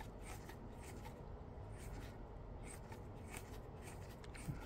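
Faint, irregular ticks and scratches as the knurled screw of a phone screen-separator clamp is turned by hand, drawing the suction cup up to lift the heated iPhone 16e screen as it comes away. There is a soft knock near the end.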